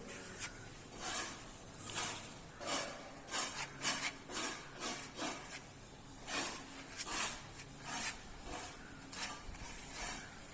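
Repeated scraping strokes of a hand tool working a crack in a masonry wall, irregular, about one or two a second.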